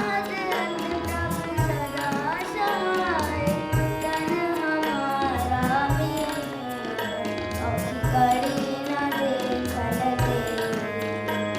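A Sikh shabad (devotional hymn) sung to tabla accompaniment: a singing line that slides and ornaments between notes over steady held tones, with regular tabla strokes.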